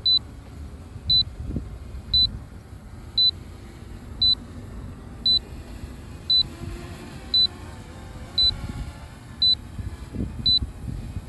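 High, short electronic beep repeating about once a second, the drone remote controller's alert while the drone returns home on its own. Wind rumbles on the microphone underneath.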